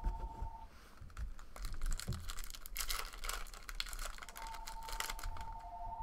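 A foil trading-card pack wrapper crinkling and tearing open, then cards rustling as they are slid and shuffled by hand, in a dense run of small crackles. A steady two-note electronic tone sounds briefly at the start and again near the end.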